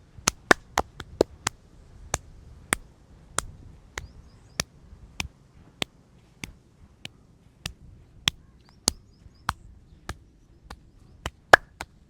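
Massage therapist's hands striking in a rhythmic head massage, sharp slaps or claps. A quick flurry comes first, then one strike about every half second or so, speeding up again near the end.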